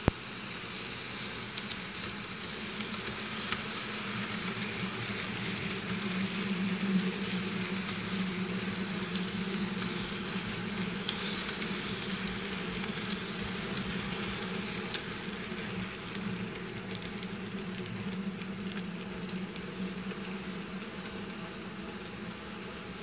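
Electric model train running on its track: a steady motor hum and rolling wheel noise with scattered light clicks. It swells as the train comes closest and eases off as it runs away.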